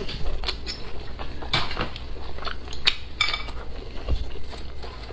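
Ceramic bowl and utensils clinking and knocking as they are handled and set down: a string of separate sharp clicks, with close-miked chewing between them.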